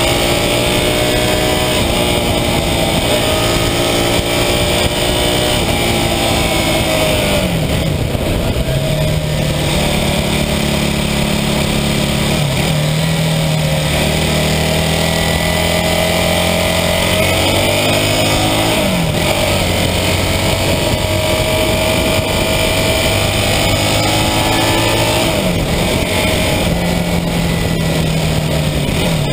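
1982 Honda CB400N Superdream's air-cooled parallel-twin engine running under way, its pitch rising and falling with the throttle and dropping quickly a few times, about seven seconds in, around nineteen seconds and again near the end. Wind and road noise rush over a camera on the front fork.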